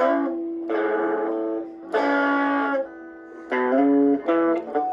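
Squier Cyclone electric guitar being picked, playing a short phrase of single notes and chords that each ring and fade, with a quick cluster of notes near the end.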